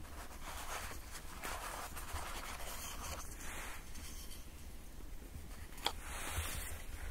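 Canvas rustling and rubbing as a cloth pouch is untied and a carved wooden spoon is pulled out of it, with one sharp click about six seconds in.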